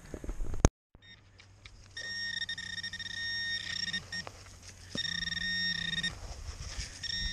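Metal detector target tone: a steady electronic beep held for about two seconds, then about a second, then starting again at the very end, while a hand digger scrapes and cuts into frozen, snowy soil.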